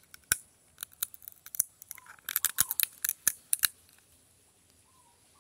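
A small hard-shelled nut being bitten and cracked open with the teeth: a run of sharp cracks and crunches, thickest from about two to three and a half seconds in.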